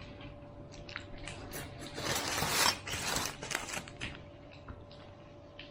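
Eating at a meal: scattered clicks of cutlery against dishes and containers, with a louder scraping rustle about two seconds in, over a faint steady hum.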